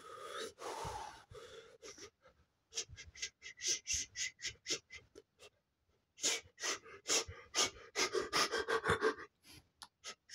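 A man's breathy vocal sounds: two quick runs of short, sharp gasping breaths, with a pause of about a second between them.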